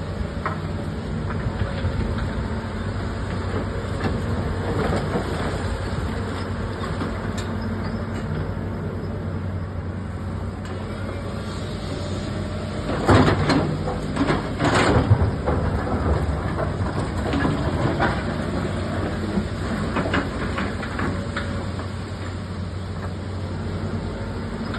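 A construction digger's engine running steadily under load. A cluster of loud clanks and scrapes comes about halfway through, typical of a bucket striking and dragging over rock or soil.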